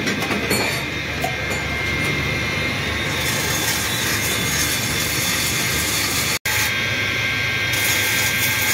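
Workshop machinery running steadily: a constant mechanical hiss and whine, broken by a brief dropout about six seconds in.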